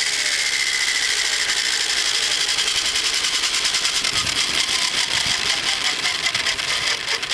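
Electric RC helicopter on the ground after landing, its motor whining and rotor blades chopping as they spin down. The whine falls slowly in pitch and the sound begins to fade near the end.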